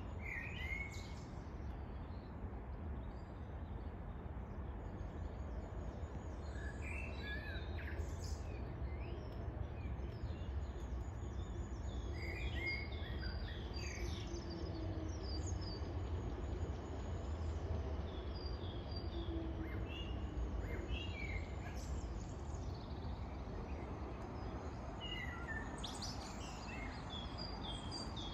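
Songbirds chirping and calling in short scattered phrases over a steady low rumble.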